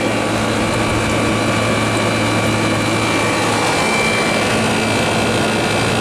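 A 27,500 BTU Carrier International Series air conditioner running at full load: a steady hum under an even rush of air from its fan.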